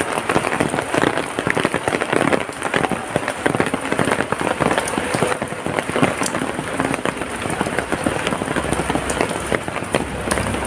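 Heavy rain falling, a dense steady hiss made of countless fine drop impacts. A low rumble comes in near the end.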